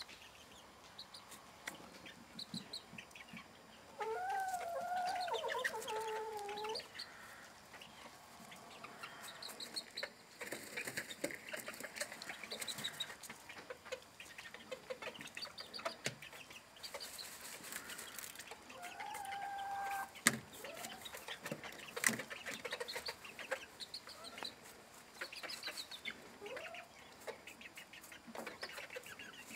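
Bantam hens clucking and calling, with one drawn-out call about four seconds in and a shorter one past the middle, over short high chirps and light ticks of scratching. Two sharp knocks near the end.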